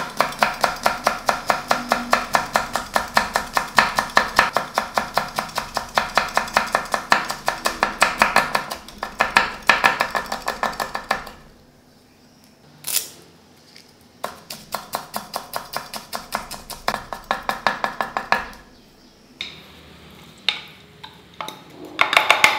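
Chef's knife rapidly chopping green chillies on a wooden cutting board, about four to five even strokes a second. The chopping stops about halfway, with a single knock, and resumes for a few more seconds. Near the end there is a clatter of steel bowls knocking together.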